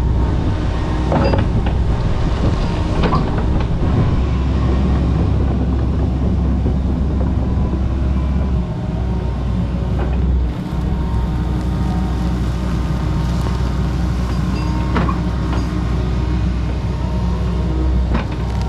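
Kobelco SK85 MSR 8-ton excavator's diesel engine running steadily under working load, with scattered sharp cracks and knocks as it works through overgrowth.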